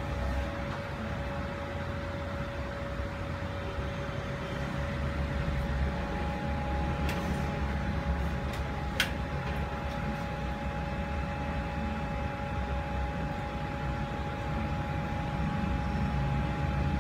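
Hot-air rework station blowing steadily to reflow the chips on an Android TV box's board: a constant whir and hum with a steady tone, a second higher tone joining about six seconds in. One sharp click about nine seconds in.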